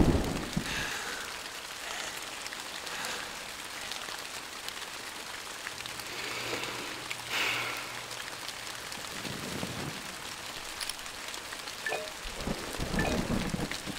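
Steady rain falling, with the tail of a thunderclap fading in the first second. A few low thuds come near the end.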